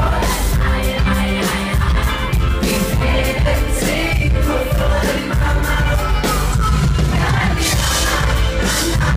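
Live pop concert music over a PA: a singer's voice over heavy bass and a driving beat.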